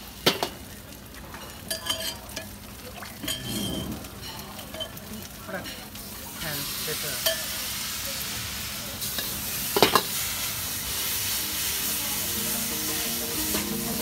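Food sizzling and frying in a wok over a gas burner while it is stir-fried. A metal ladle clanks against the wok, sharply just after the start and again just under ten seconds in. The sizzle grows louder about six and a half seconds in.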